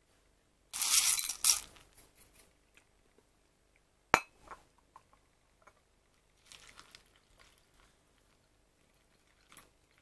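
A short, loud rattle from the glass bowl of dry cereal, then a single sharp glass clink with a brief ring about four seconds in. After that comes a softer patch of milk being poured from a small glass jug onto chocolate star- and moon-shaped cereal.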